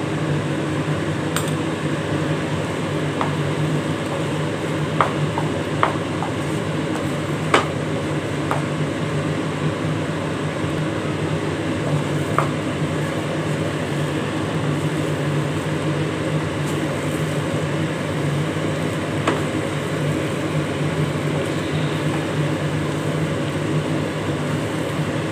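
Wooden spatula stirring thick ragi halwa in a non-stick pan, with a few light knocks against the pan scattered through, over a steady mechanical hum.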